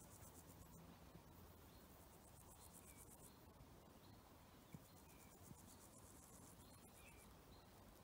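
Faint insects chirring in high-pitched, finely pulsed stretches, with soft short bird chirps about once a second; otherwise very quiet.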